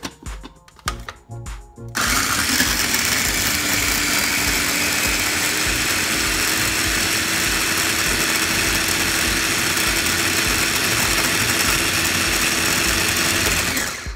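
Small electric food processor starting about two seconds in and running steadily, blending onion, ginger, garlic and green chillies into a paste, then switching off just before the end.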